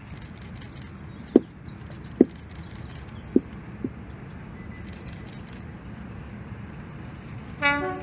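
A steady low rumble with a few sharp knocks in the first half, then near the end an English Electric Class 50 diesel locomotive sounds its two-tone horn in a short blast, low note then high.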